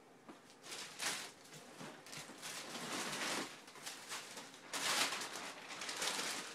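Packaging rustling and crinkling as it is handled, in irregular bursts that begin about a second in.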